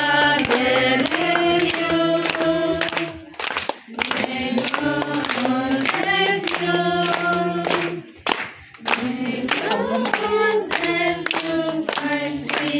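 A group of voices singing a song together, hands clapping along to a steady beat. The singing breaks off briefly twice between phrases.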